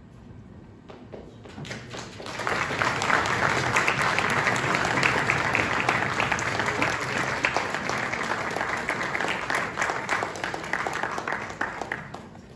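Audience applauding, a dense patter of many hands clapping. It swells over the first two seconds, holds for about ten seconds, then dies away near the end.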